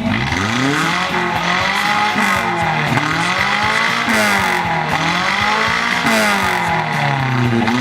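Toyota AE82 Corolla's 4A-C four-cylinder engine being revved hard as the car is driven flat out, its pitch rising and falling about once a second.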